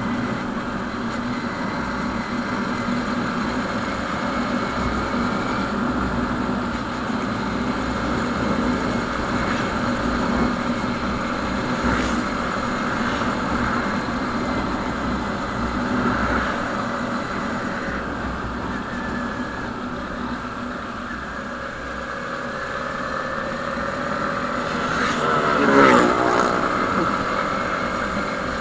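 Motorcycle engine running steadily while cruising, with low wind rumble on the microphone. About three seconds before the end there is a brief louder swell with a shifting pitch.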